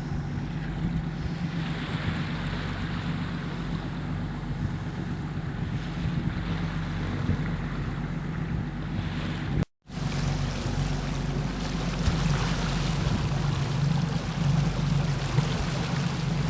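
Fishing boat's engine running steadily under way, with water rushing along the hull and wind on the microphone; the sound cuts out for a moment near the middle.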